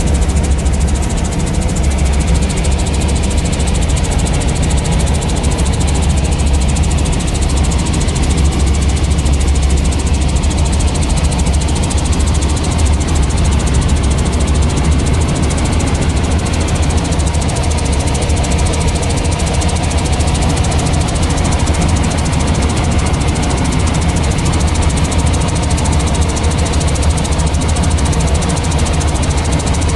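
Small helicopter's engine and rotors in steady cruise flight, heard from inside the cabin: a loud, constant low drone.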